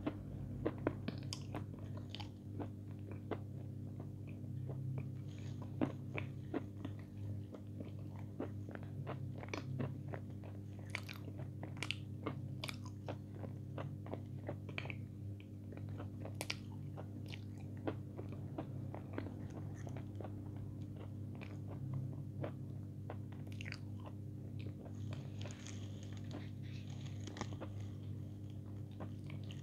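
Close-miked chewing, with irregular crunches and wet mouth clicks, over a steady low hum.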